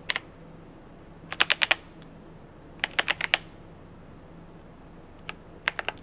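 Keystrokes on a KZZI K75 Pro 75% mechanical keyboard with Moment linear switches: one press near the start, a quick run of four about a second and a half in, another run of about five around three seconds in, and a few more near the end, as the lighting effects are stepped through. A faint steady low hum lies underneath.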